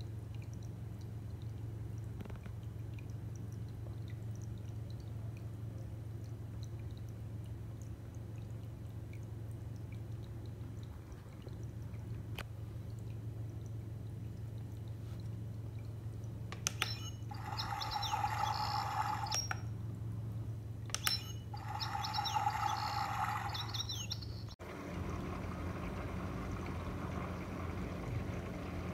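Small desktop aquarium's pump and filter running with a steady low hum and water trickling and bubbling. Twice, past the middle, a higher tone with overtones sounds for about two and a half seconds each time over the hum.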